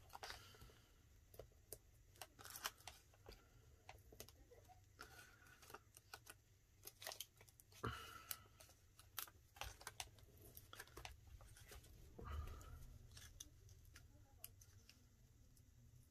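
Faint, scattered clicks, taps and paper rustles of card stock and foam adhesive pads being handled, peeled and pressed down on a craft desk.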